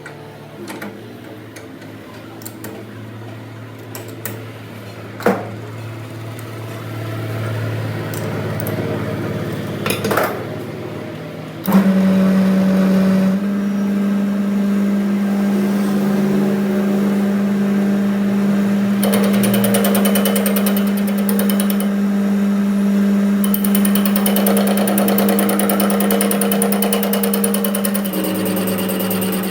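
Workshop power tool switching on suddenly about twelve seconds in and running with a loud, steady hum, with rougher higher-pitched noise coming and going on top later. Before it starts there is a lower hum that slowly grows, with a few sharp knocks.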